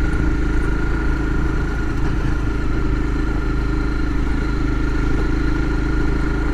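Motorcycle engine running steadily while riding along a gravel road at about 20 mph.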